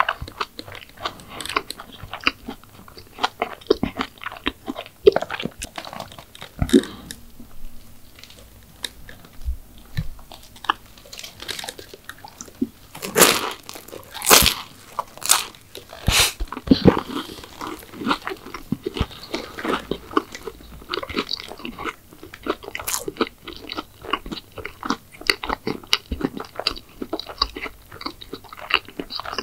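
Close-miked ASMR eating sounds: crisp bites and crunchy chewing of McDonald's desserts. It eases off for a few seconds about a quarter of the way in, and the loudest crunches come about halfway through.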